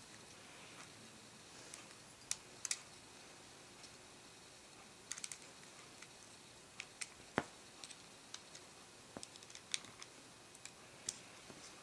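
Scattered light clicks and taps of small screwdrivers and metal and plastic parts being worked on an iPod mini during disassembly. One sharper click stands out about seven seconds in.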